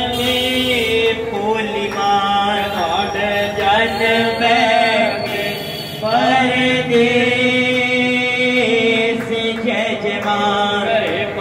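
Hindu devotional chanting of a bhajan, with the voice line bending and breaking over steady held accompanying notes.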